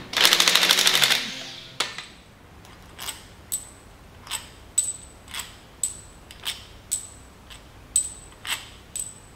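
An impact gun rattles on the powerhead's head bolts and stops suddenly about two seconds in. Then loosened steel head bolts clink sharply against one another as they are pulled out and gathered in a hand, about two clinks a second.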